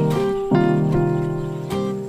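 Background instrumental music: a slow melody of plucked notes, each one ringing out before the next.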